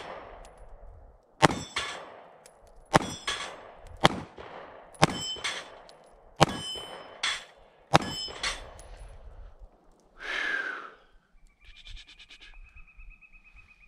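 Taurus GX4 9 mm micro pistol firing a string of shots about a second apart, with the targets clanging and ringing as they are hit. The shooting stops about two-thirds of the way through.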